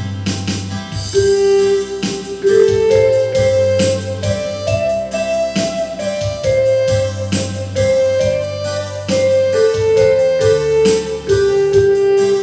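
Electronic keyboard playing a song: a melody of held notes that climbs over the first few seconds and then steps back down, over a steady bass line and a drum-machine rhythm.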